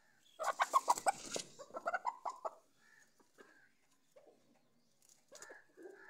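Chicken squawking: a rapid run of loud calls for about two seconds, then a few quieter clucks. The bird is being held while its tied wing feathers are freed.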